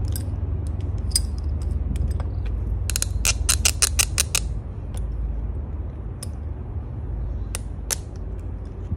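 Pliers working the stuck fuel filter loose from a motorcycle's plastic fuel pump assembly: scattered plastic clicks and creaks, with a quick run of about eight clicks around three to four seconds in. The filter is held tight in its slot. A steady low rumble runs underneath.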